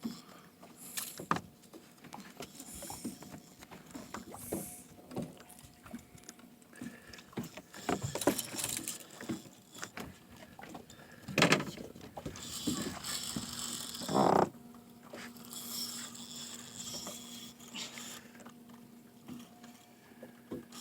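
Handling noise on a fishing boat during a shark fight on rod and reel: scattered knocks and clicks with short hissing bursts, the loudest a little past halfway, and a steady low hum through the second half.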